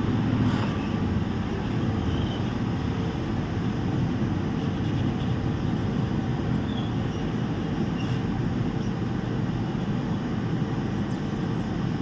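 Steady rushing air noise with a low hum: a blower running without a break.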